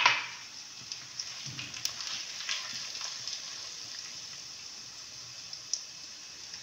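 Hot ghee sizzling in a pan with green cardamom seeds crackling, as semolina is tipped in with a sudden loud burst of sizzle at the start. A steady frying hiss with a few scattered pops follows.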